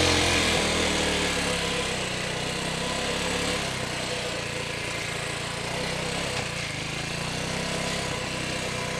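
TDR 300 dirt bike engine running at low revs while the bike is ridden along a dirt single track, a little louder in the first second and then steady, with a rushing noise over it.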